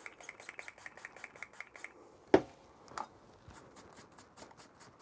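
A small brush scrubbed quickly back and forth over the metal legs of a DIP chip, a scratchy rhythm of about ten strokes a second, to clean green corrosion off them. A single sharp tap stands out about two seconds in.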